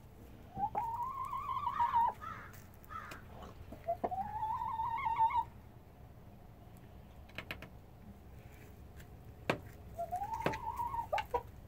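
Hens making three long, drawn-out calls, each rising and then held with a slight waver, about a second in, around four seconds in and near the end. A few sharp clicks fall between the calls.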